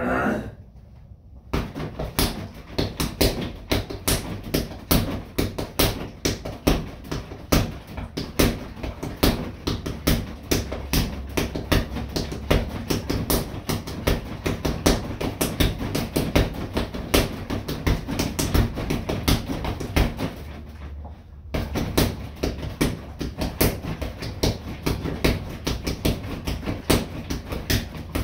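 Rapid flurries of punches landing on a freestanding BOB punching dummy, several strikes a second in a steady run. The strikes pause briefly about 20 seconds in, then pick up again.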